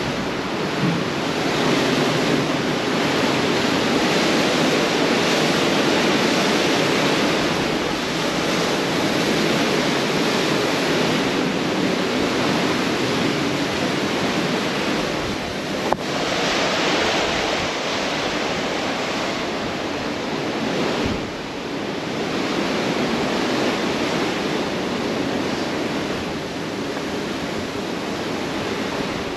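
Steady rush of wind and sea water along the hull of a moving cruise ship, with wind buffeting the microphone and the level slowly swelling and easing. One sharp click about sixteen seconds in.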